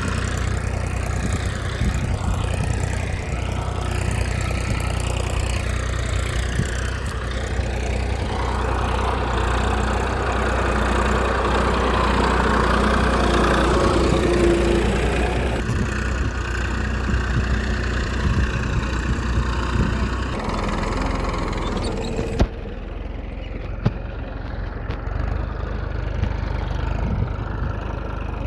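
A small engine running steadily at an even idle, cut into several short segments with abrupt changes in tone.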